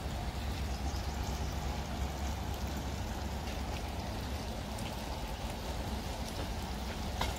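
Steady trickling and rushing of a shallow creek, with a steady low rumble underneath and a few faint ticks.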